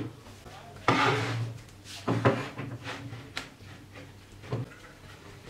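Plywood pieces being handled on a wooden workbench: a scrape about a second in, then a few knocks and taps as the boards are set down and moved.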